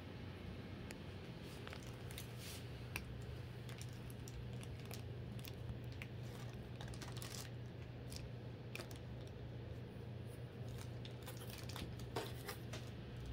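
Faint rustling, crinkling and scattered light clicks as a cat noses through a cardboard box packed with plush dog toys, over a steady low hum.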